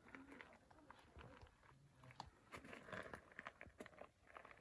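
Near silence: faint outdoor room tone with scattered small ticks and crackles.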